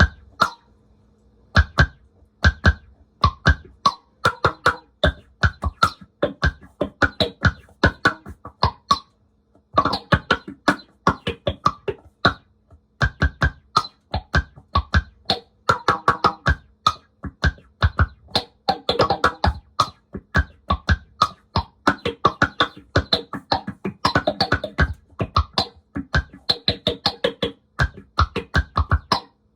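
Drum hits played in a loose, busy groove of deep thumps and sharp cracks, run through the bass amp simulator and dirty Q distortion of a bass effects unit.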